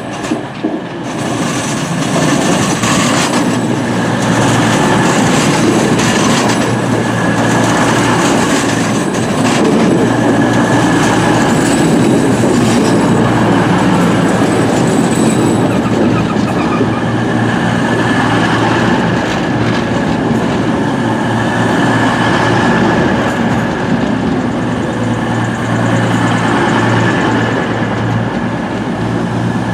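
A CrossCountry Class 220 Voyager and Class 221 Super Voyager diesel-electric multiple units run into the platform and slow down. Their underfloor diesel engines keep up a steady low hum, and a thin steady high squeal rides over the loud rumble of the wheels on the rails.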